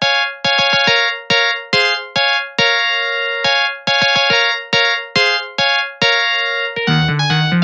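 Samsung SGH-T300 polyphonic ringtone played on an MCP-MA7: a bright, electric-piano-like melody of short, sharply struck notes that fade quickly, with no bass. Near the end it gives way to another ringtone that has a bass line.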